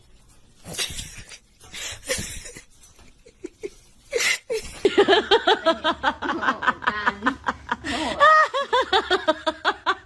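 A person laughing hard: a few breathy bursts at first, then from about halfway a fast run of laughter pulses, about four or five a second.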